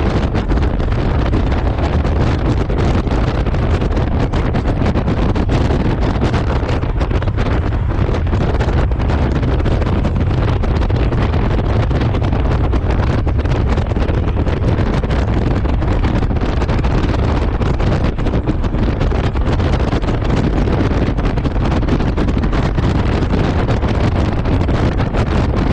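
Wind buffeting the microphone on a moving Honda Gold Wing motorcycle: a loud, steady rush, heaviest in the low rumble.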